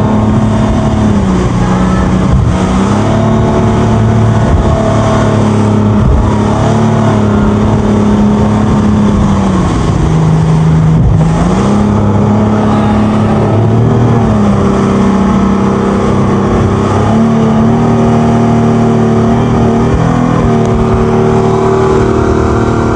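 A 300-horsepower outboard motor on a speedboat running hard under tow load, its pitch dropping and climbing back a few times as the throttle changes, over a steady hiss of rushing water and wind.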